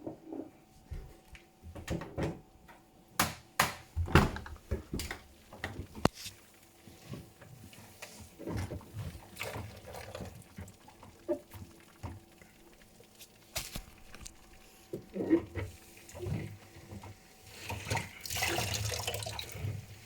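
Hotpoint domestic appliance running with irregular knocks, clicks and short squeaks. A rush of water sets in near the end.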